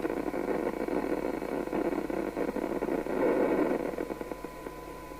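FM CB receiver's audio output hissing and rushing with a weak signal, a 1 kHz test tone faint underneath. About four seconds in, the noise dies away and the steady tone comes through cleaner, a sign of the front-end coils being peaked and the receiver's sensitivity improving.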